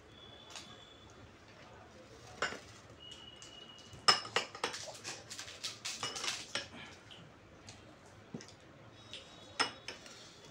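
Spoon and cutlery clinking and scraping against bowls and plates while food is served and eaten. There are a few scattered clinks, some ringing briefly, and a quick run of clinks in the middle, the loudest just after the fourth second.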